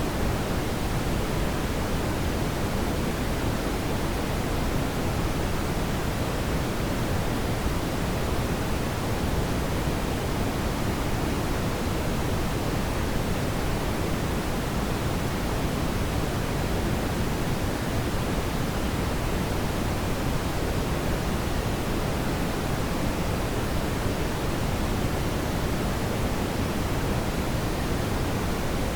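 Steady brown noise: a deep, even hiss weighted toward the low end, with no change throughout.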